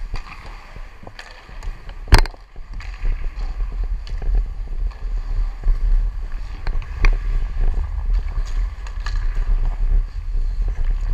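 Wind buffeting the microphone of a camera worn by a skating hockey player, with ice skate blades scraping and carving on the ice. A single sharp knock comes about two seconds in.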